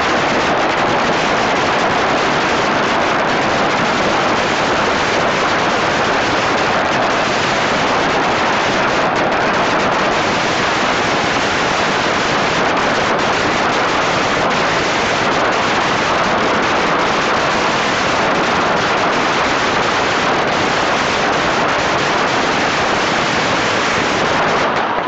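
A very long string of red paper firecrackers going off in unbroken rapid succession, the bangs so close together that they merge into one steady, loud crackle.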